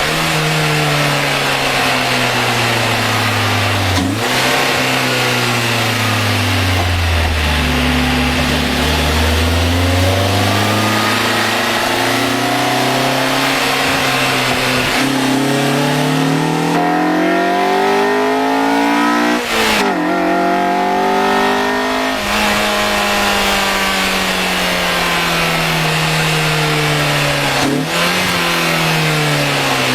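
Honda Accord Euro R engine running under load, its pitch rising and falling through the revs, with sudden breaks in pitch three times.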